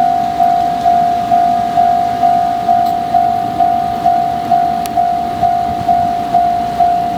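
Japanese railway level crossing's electronic warning bell clanging at a steady pace, a little over two strikes a second, each strike a single ringing tone that decays before the next.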